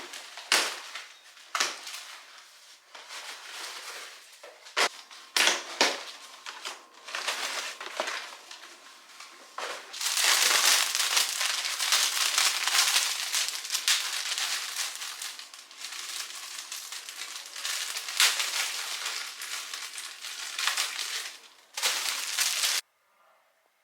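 Plastic and paper flower wrappings crinkling and crackling as bunches of cut flowers are handled and unwrapped. Sharp snaps and clicks come first, then dense, continuous crinkling from about halfway that cuts off suddenly near the end.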